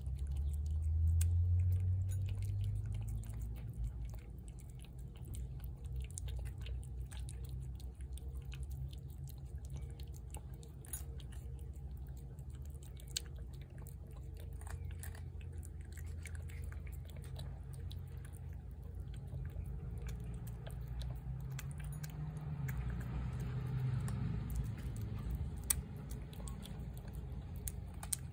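Feral tabby cat eating chunks of wet cat food off a plate, chewing and biting in many small irregular clicks, with a low rumble strongest in the first few seconds.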